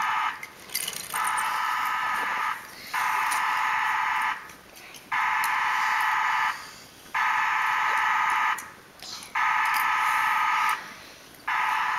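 An electronic buzzer sounding in repeated blasts of about a second and a half, each followed by a short gap, about every two seconds.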